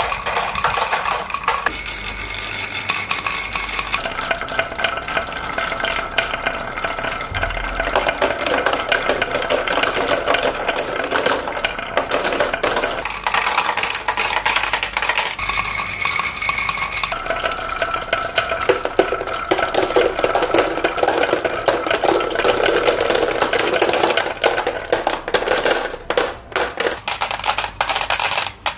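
Many glass marbles rolling and clattering down wooden tracks with carved wavy grooves, clicking against each other and the wood in a dense, continuous clatter that thins to sparser clicks near the end.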